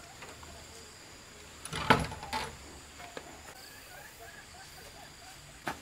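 Wooden plank door swung shut, knocking against its frame about two seconds in, with a second, smaller knock just after.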